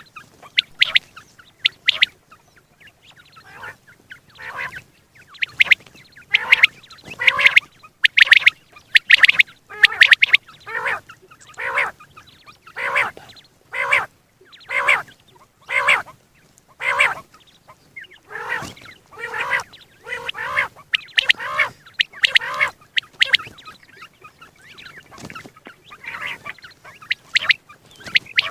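A quail calling over and over: a series of short, harsh notes about one a second, loudest through the middle and fainter near the start and end.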